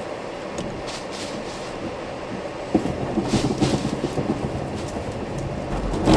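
Car cabin noise during a hard stop from about 40 km/h on a wet, sprinkler-soaked skid pad: tyres hissing through water and spray hitting the car. A louder, rough, rattling rumble sets in about three seconds in.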